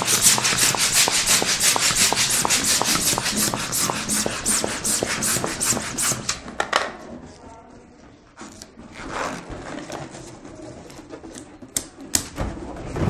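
Yellow hand balloon pump worked in quick, even strokes for about six and a half seconds, pushing air into a clear balloon. After that come quieter rubbing and a few clicks as the balloon's neck is tied off.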